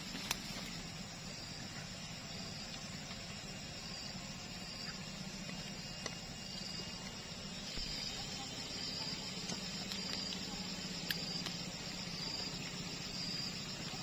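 Outdoor ambience: a short high chirp repeating about once a second over a steady low hum, with a few sharp clicks.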